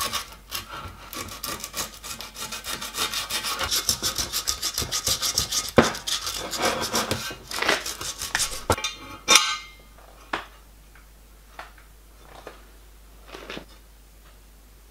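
A hand rubbing quickly back and forth over the steel face of the die filer housing around its bearing flanges, with a few sharp clicks among the strokes; the rubbing stops about nine seconds in. After that come a few light, separate taps as small steel parts are set on the plate.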